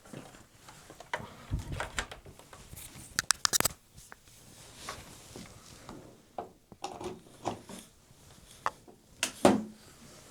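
Scattered light clicks and knocks as the opened Toshiba RDXV50KF DVD/VCR combo is powered back on and handled, with a quick run of sharp clicks about three seconds in.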